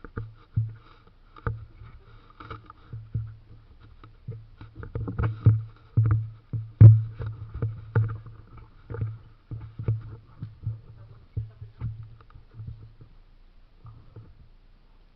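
A run of dull knocks and thumps, about two a second and uneven, loudest in the middle and dying away shortly before the end.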